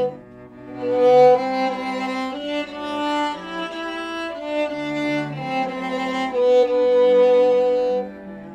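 Birdseye maple string quartet playing: bowed violin melody over sustained lower string parts, in long held notes. There is a brief hush in the first second before the phrase comes back in, and it softens near the end.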